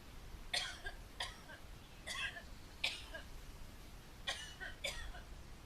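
A young woman coughing while smoking a cigarette: six short, sharp coughs in three pairs.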